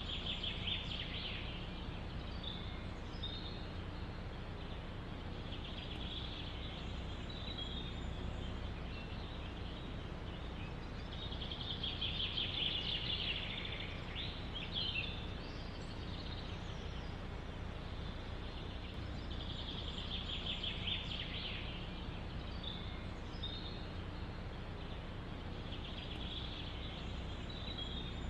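Songbird singing short, fast trilled phrases every few seconds, the loudest about halfway through, over a steady low rumble of forest wind.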